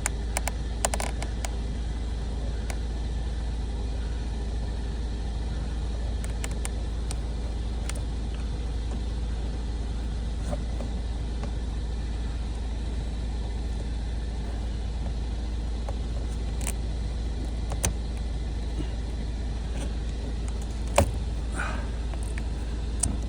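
2015 Audi TTS's engine idling steadily, a constant low rumble, with a few sharp clicks and taps.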